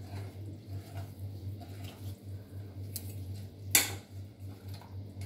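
Spoon stirring a thin cornflour batter in a steel pot, with soft scraping and small clinks against the metal, and one sharper clink a little under four seconds in.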